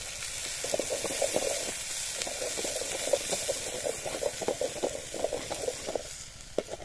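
Food sizzling in a steel kadai over a wood fire, with a steady hiss. A ladle scrapes and knocks against the pan in quick, irregular strokes as it is stirred.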